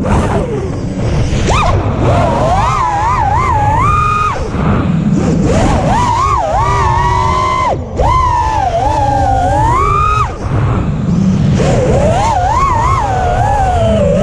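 Five-inch FPV quadcopter's Emax Eco II 1700kv brushless motors and propellers whining, the pitch sweeping up and down with every throttle change. The whine drops out briefly twice, around eight and ten seconds in.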